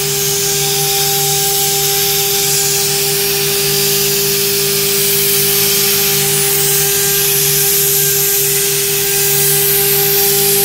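MC1325-G3 CNC router spindle running steadily as it engraves an aluminium plate, giving a constant whine, with a steady high hiss from the coolant spray nozzle over the cut.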